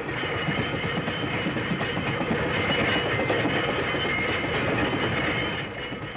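Electric interurban Red Car running along the track at speed: a steady rolling rumble with a faint high whine over it.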